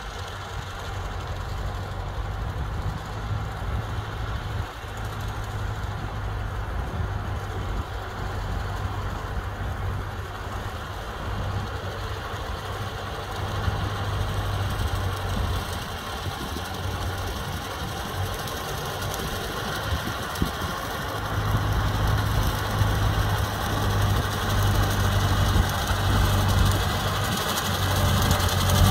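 Vintage Ford tractor's engine running steadily under load while driving a rotary cutter through tall grass, growing louder in the last few seconds as it comes closer.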